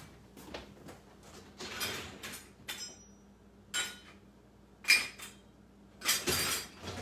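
Dishes and utensils clinking and knocking in a kitchen sink while a measuring cup is dug out. There are a handful of separate clinks, the loudest about five seconds in.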